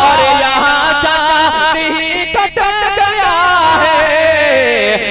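A man singing a naat into a microphone, drawing out long, ornamented wavering notes, with a short break about two and a half seconds in.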